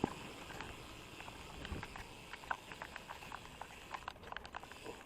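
Bicycle on the move: light, irregular clicks and ticks, a few each second, over faint rolling noise.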